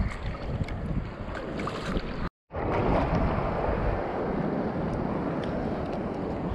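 Choppy surf washing around a wading angler, with wind buffeting the microphone. The sound cuts out completely for a moment about two seconds in.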